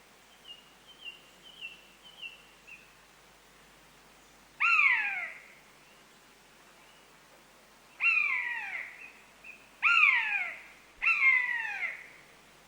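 Common buzzard mewing: four loud, drawn-out calls, each falling in pitch, the first about five seconds in and the other three close together near the end. Before them comes a run of faint, short high notes.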